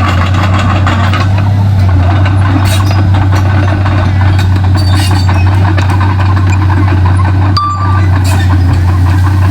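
Komatsu D31P crawler bulldozer's diesel engine running steadily with a strong low drone, with clanks and rattles from the machine working throughout.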